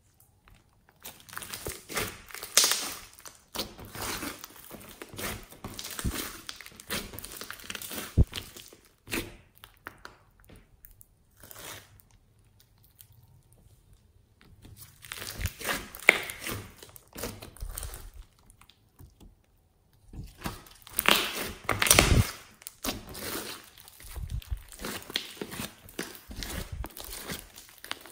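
Fluffy slime with beads mixed in, being stretched, folded and squeezed by hand: bursts of small clicks and pops as the slime pulls and air pockets burst, pausing for a few seconds in the middle and again briefly before the last burst.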